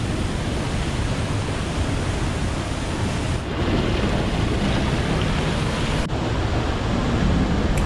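Water rushing steadily over rocks from a waterfall and its stream rapids, the sound shifting slightly at cuts about three and a half and six seconds in.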